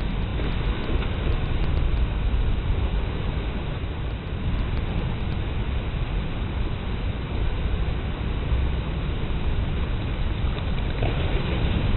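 Steady wind buffeting the microphone: a low rumbling noise that swells a little near the end.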